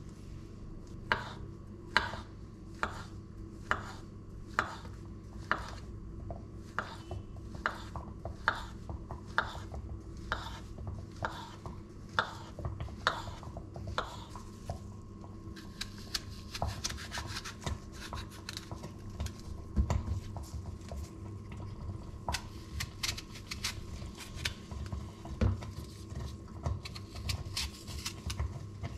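Kitchen knife slicing a peeled banana on a wooden cutting board, each cut ending in a sharp knock on the board, a little under once a second. From about halfway the cutting gets quicker and crisper, with scraping, as the knife moves on to an apple.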